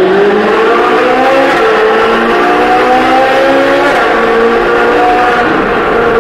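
Ferrari 458's naturally aspirated V8 through a full Novitec exhaust, accelerating hard in a tunnel: the engine note climbs for about four seconds, dips briefly at a gear change, then pulls on again.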